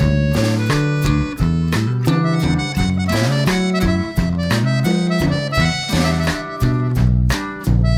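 Background music with a steady beat: a reedy, harmonica-like melody over plucked guitar-like notes.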